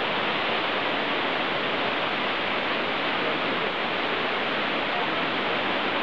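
Steady, even rush of the Cloud Forest's tall indoor waterfall pouring down from the artificial mountain, with faint visitor voices underneath.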